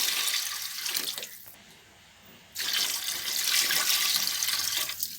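Water being poured into a biryani pot of masala and chicken, in two long pours with a short pause between them, as the cooking water is added before the rice.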